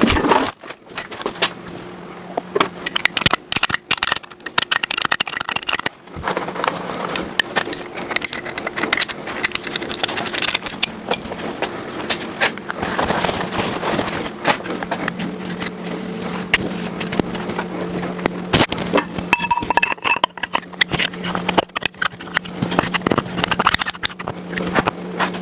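Irregular metallic clicks, taps and scrapes of hand tools and engine parts being handled while pistons and rods are fitted into a small-block Ford block, over a steady low hum.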